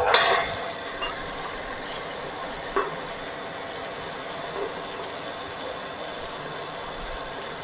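KitchenAid Heavy Duty stand mixer running steadily, its paddle beater mixing almond cream in the steel bowl, with one light tap about three seconds in.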